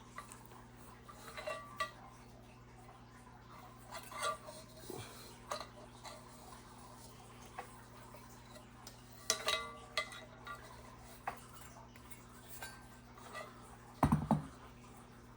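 Scattered light metallic clinks and taps from handling the fan's metal parts, a few of them ringing briefly, over a faint steady low hum, with a heavier thump near the end.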